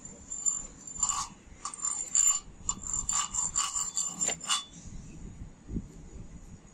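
A steel chipping hammer tapping along a vertical stick-weld bead to knock off the slag: a quick run of about a dozen ringing metal-on-metal taps, stopping about four and a half seconds in.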